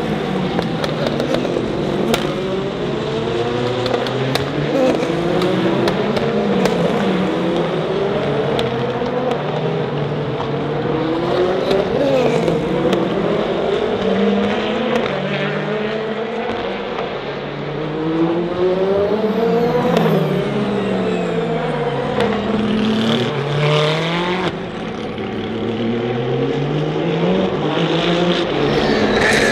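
Race cars passing one after another at speed, several engines overlapping, each engine note rising and then dropping in pitch as the car goes by.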